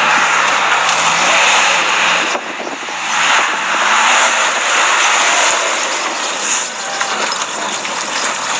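ZIBAR 4x4 off-road vehicle driving on the climb, with a low engine note that rises and falls under a loud, steady rushing noise. The loudness dips briefly about two and a half seconds in.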